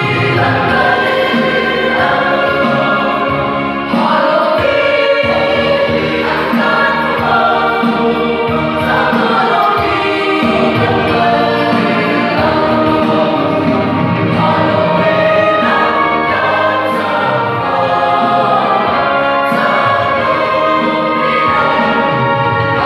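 Mixed choir of men's and women's voices singing together, holding long chords at a steady, full level.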